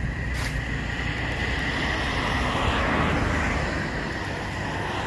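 Road traffic noise from the highway, a steady hum and hiss that swells as a vehicle passes about three seconds in.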